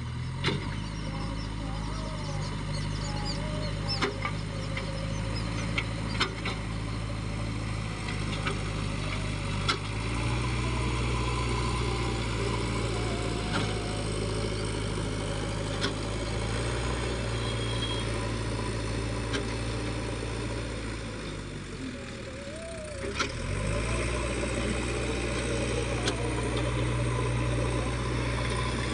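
JCB 3DX backhoe loader's diesel engine running steadily while working, with scattered sharp knocks. The engine grows louder about ten seconds in, sags and dips in pitch briefly around twenty-two seconds, then picks up again.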